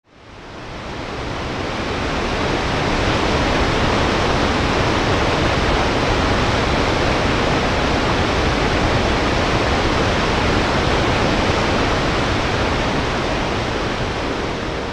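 Waterfall rushing, a steady roar of falling water that fades in over the first couple of seconds.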